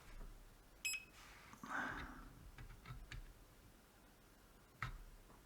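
Digital multimeter giving one short, high beep about a second in, followed by faint clicks of handling and a sharp tap near the end.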